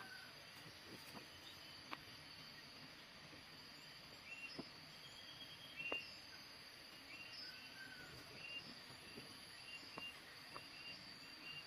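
Faint orchard ambience: a steady high insect drone, with short bird chirps repeating about once a second through the second half, and a few soft clicks.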